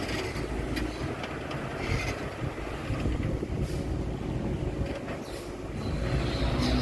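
Diesel dump truck engines running at an earthworks site, a low rumble with a few scattered knocks; an engine grows louder near the end.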